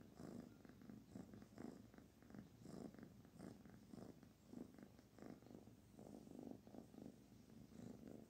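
A kitten purring faintly and steadily while being stroked on the head, a sign that it is content.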